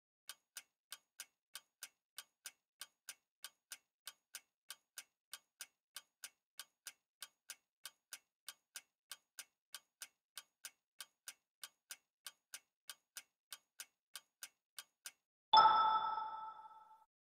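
Quiz countdown-timer sound effect ticking evenly, about three ticks a second, then a single bright chime about fifteen seconds in that rings out over a second and a half, marking the reveal of the correct answer.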